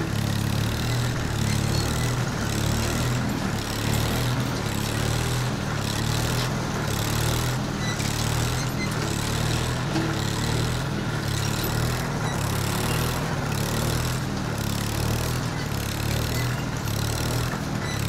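Steady low drone of a running engine, even in level.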